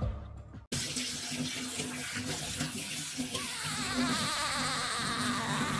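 Water running or splashing, a steady rushing noise that starts abruptly about a second in.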